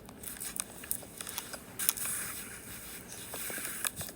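Light clicks and short scrapes scattered irregularly, like small plastic things being handled and moved on a surface.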